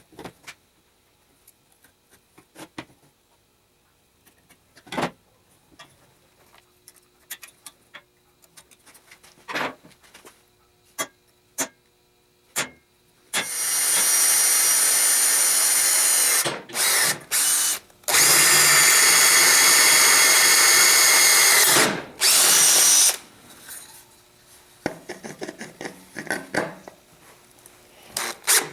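Scattered knocks and clicks of handling tools and parts, then a power drill running at full speed in two long runs of several seconds each, with short trigger bursts between them. Lighter clatter follows near the end.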